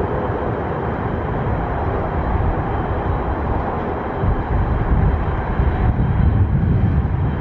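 Antonov An-124's four Progress D-18T turbofan engines running as the freighter taxis, a steady jet rumble with a faint high whine over it.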